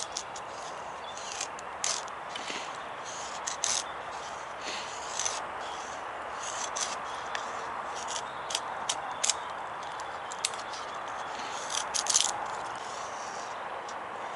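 Knife blade shaving thin curls off a wooden stick to make a feather stick: a string of short, irregular scrapes, about a dozen, the strongest a little past two thirds of the way through.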